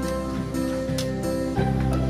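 Soft instrumental background music led by plucked guitar.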